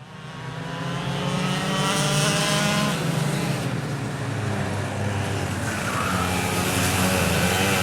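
Recorded racing engine running at speed, its pitch dropping over the first few seconds and climbing again later as the revs change. It fades in over about the first second.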